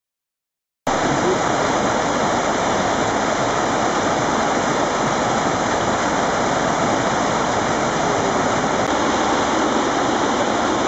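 Steady rush of a mountain torrent cascading over rocks, starting abruptly about a second in.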